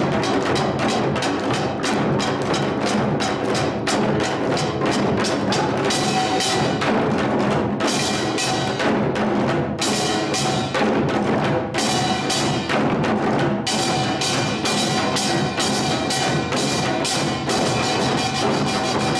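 Samul nori percussion ensemble playing: kkwaenggwari and jing gongs with janggu and buk drums beating a fast, dense rhythm, the metal gongs ringing over the drum strokes.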